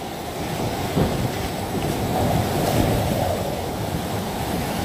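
Hurricane eyewall wind with wind-driven rain, buffeting the microphone: a continuous rush that swells slowly, with a sharp gust about a second in.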